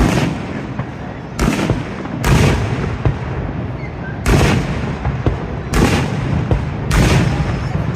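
Fireworks shells bursting overhead: about six loud booms at uneven intervals of one to two seconds, each trailing off in a rumbling echo, over a steady low rumble.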